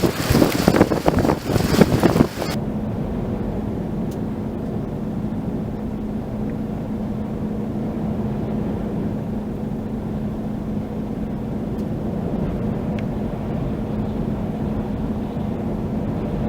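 Gale-force wind buffeting the microphone in loud, uneven gusts. About two seconds in it cuts suddenly to a steady low rumble with a constant hum.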